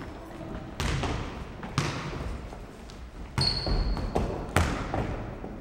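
Futnet ball being kicked and bouncing on a wooden sports-hall floor: four sharp thuds, a second or so apart, each ringing on in the hall's echo.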